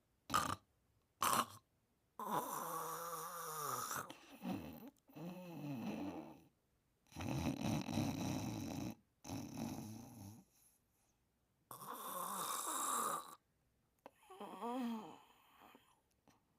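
A sleeper snoring: about ten separate snoring breaths with short silences between. Several breaths carry a wavering sound that rises and falls in pitch, sounds made while dreaming.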